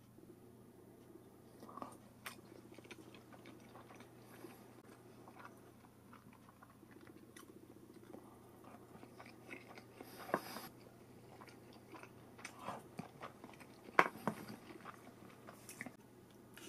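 Someone eating with chopsticks: chewing and small clicks and knocks of chopsticks and dishes, with two louder sharp sounds about ten and fourteen seconds in.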